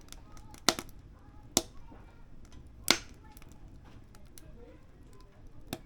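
Firewood burning in a wood stove, crackling softly with four sharp, loud pops spread across the few seconds.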